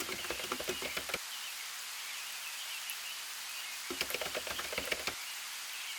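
Outdoor morning ambience: a steady high hiss with faint, wavering chirping, broken twice by short clusters of quick ticks, once at the start and again about four seconds in.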